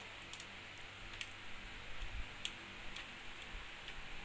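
A few faint, scattered plastic ticks as fingers handle the two-pin connector and thin wires of a laptop's CMOS battery on the motherboard, over a steady hiss.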